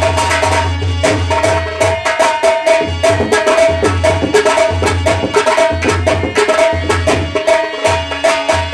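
Instrumental nautanki folk music: fast, dense hand-drum strokes over a steady held melodic note and a pulsing low tone.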